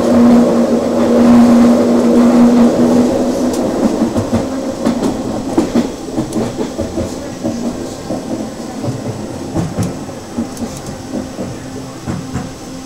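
Detroit People Mover car running along its elevated guideway, heard from inside the car: a steady hum of its linear induction motor for the first three seconds or so, then irregular rattling and clacking that slowly grows quieter as the car slows toward a station.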